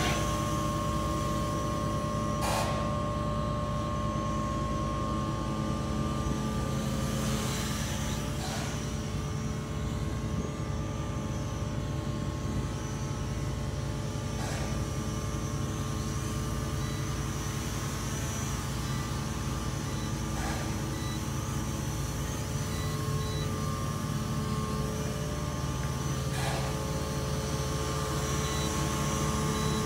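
Small toy quadcopter's motors and propellers whirring steadily in flight, a constant high hum over a low mechanical rumble.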